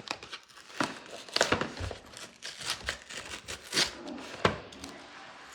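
Packaging being opened by hand: crinkling and tearing with irregular sharp snaps and rustles.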